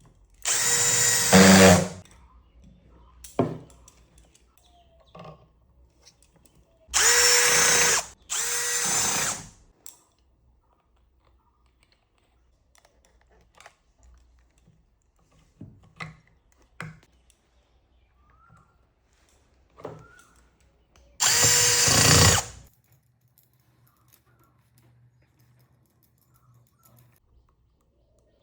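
Electric hand drill run in four short bursts of one to two seconds each, two of them back to back, with small clicks and knocks of handling between.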